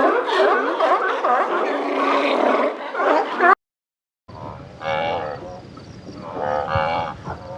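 A dense jumble of many overlapping calls or voices cuts off abruptly. After a brief silence, livestock give short drawn-out calls, one after another.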